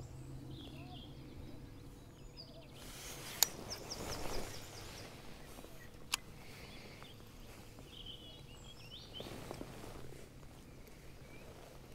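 Faint open-air ambience on a lake while a baitcasting fishing reel is wound in. Two sharp clicks come a few seconds apart, with a short rush of noise and a quick run of fine ticks around the first click. Faint bird chirps come and go.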